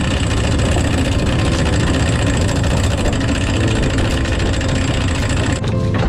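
A fishing boat's engine running steadily, with the deck capstan winch turning as the anchor chain is hauled aboard.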